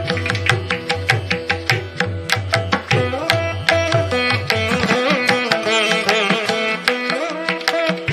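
Instrumental background music in an Indian classical style: a steady drum beat under a melodic instrument. A few seconds in, the low drum strokes thin out and the melody's notes bend up and down, then the beat returns near the end.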